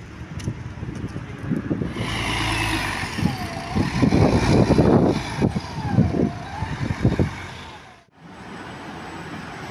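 Mercedes-Benz Conecto articulated city bus running close by, its engine rumble swelling to its loudest about halfway through. It cuts off suddenly near the end, giving way to quieter traffic noise.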